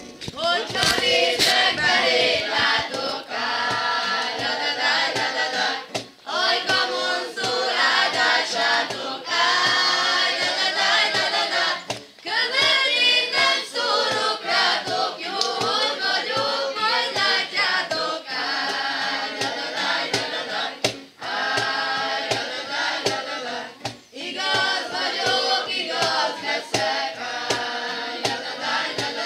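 A group of young people singing a Hungarian song together in phrases of a few seconds, accompanied by an acoustic guitar, with a cajón struck in a steady beat underneath.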